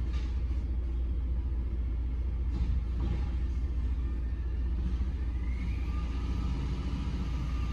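Peterbilt 520 garbage truck with a Bridgeport Ranger automated side loader at work: a steady low engine rumble, a couple of knocks near the start and about three seconds in as the arm dumps a cart into the hopper, then a rising whine about five seconds in as the truck revs up.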